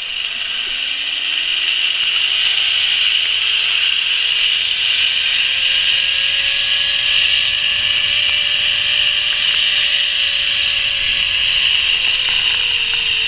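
Zipline trolley pulley running along the steel cable with a loud, steady whirring hiss. A tone rises in pitch over the first few seconds as the trolley picks up speed, holds, and begins to fall near the end as it slows for the landing.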